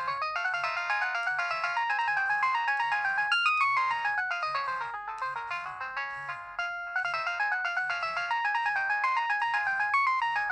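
Nokia 2630 ringtone playing: a quick synthesized melody of short notes, several sounding at once, with a brief dip in the tune about two-thirds of the way through.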